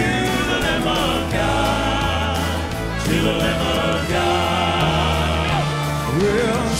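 Southern gospel male vocal quartet singing in close harmony over live band accompaniment.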